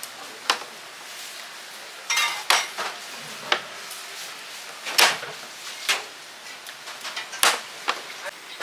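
Kitchen clatter of utensils and dishes: irregular sharp knocks and clinks over a steady background hiss, the loudest about five seconds in.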